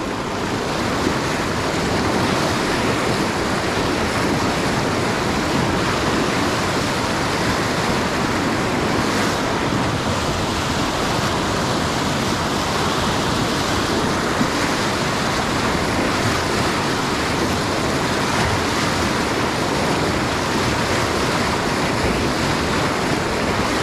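River rapids, whitewater rushing steadily over rocks.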